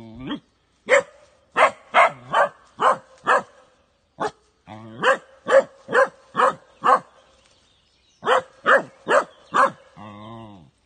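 Young dachshund barking repeatedly at a dead wild boar it has tracked down, baying over the found game. The barks come in three runs of about two to three a second with short pauses between, and a short whine near the end.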